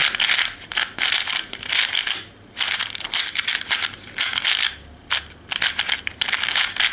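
Plastic 3x3 speed cube being turned rapidly by hand during a solve: fast runs of clicking and clacking as the layers snap past each other, broken by a few brief pauses.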